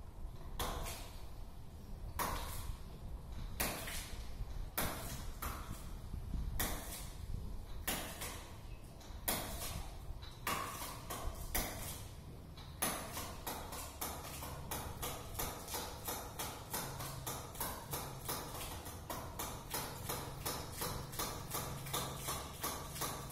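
Hydraulic ram pump's waste valve clacking shut, each clack a small water-hammer knock. The strokes come slow and uneven at first, then about halfway through settle into a steady beat of about three a second as the pump runs on its own.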